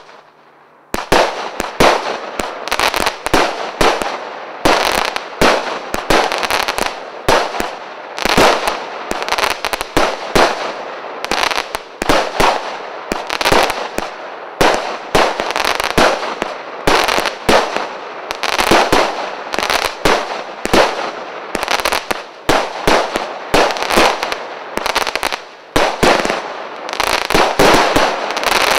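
Gelios CGF-419 multi-shot firework battery (cake) firing. About a second in it starts a rapid series of bangs, roughly two a second, that keeps going throughout.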